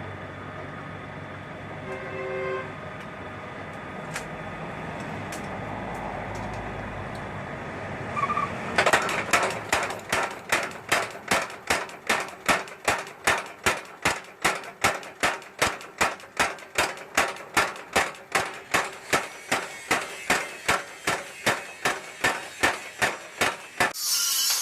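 A low steady hum, then, about nine seconds in, a long even run of hammer strikes on steel at about three a second; a bright hissing noise joins near the end.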